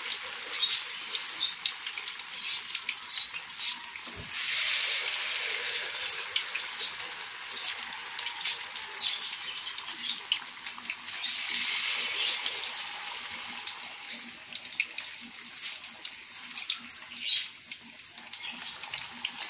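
Battered chicken pieces deep-frying in a wok of hot oil: a steady sizzling hiss with many scattered crackles and pops.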